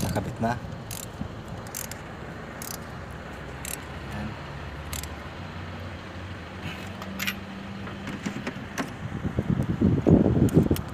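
Hand tools clinking against metal engine parts in a car's engine bay: scattered sharp clicks, then a louder stretch of rapid rattling near the end, as ignition parts are refitted on a non-running engine.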